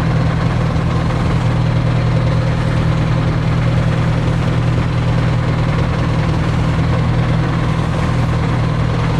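Steady drone of a small excursion boat's engine, heard from on board, running evenly without change.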